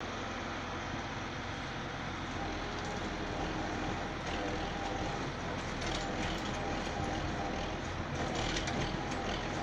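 Tractor diesel engine running steadily under load as it strains on a tow rope to pull out a tree stump.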